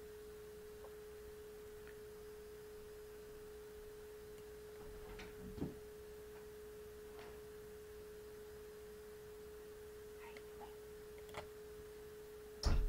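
Faint steady electrical whine held at a single pitch, with a few soft mouse clicks scattered through and a short thump near the end.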